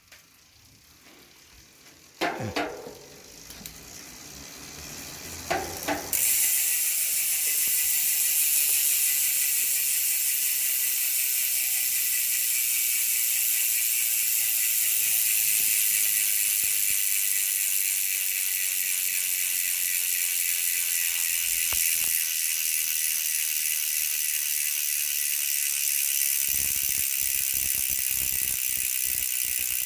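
A ratchet-and-pawl mechanism spinning freely: after a couple of knocks, it settles about six seconds in into a steady, fast buzz of clicks.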